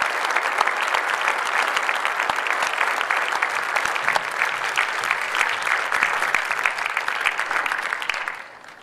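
Audience applauding steadily, then dying away about eight seconds in.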